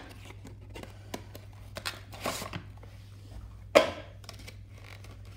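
A small cardboard model-aircraft box and its clear plastic tray being handled: light clicks and scrapes, a rustle about two seconds in, and one sharp knock a little before four seconds in as the box is set down on a wooden table.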